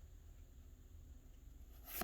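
Near silence with a low steady hum, ending in the quick swish of a trading card being slid across the others.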